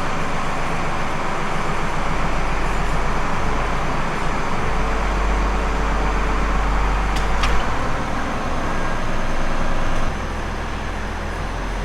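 Tractor engine running steadily, with a sharp clank about seven seconds in; the sound gets a little quieter about ten seconds in.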